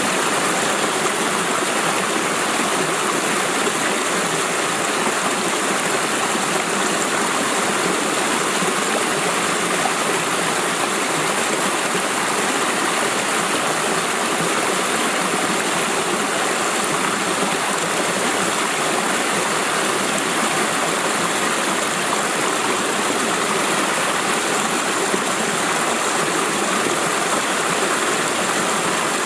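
Creek water pouring over a waterfall: a steady, even rush of water that does not change.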